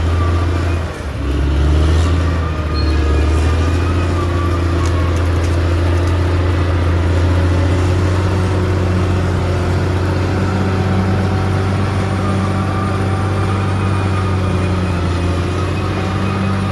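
Bulldozer's diesel engine running steadily under load, with a short dip in its note about a second in before it pulls back up.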